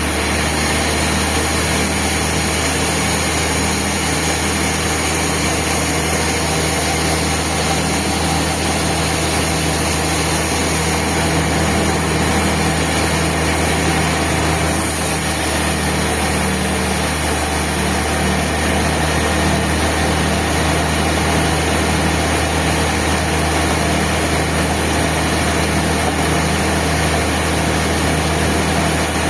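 Band sawmill running steadily, with a continuous engine-driven machine drone and no pauses or changes.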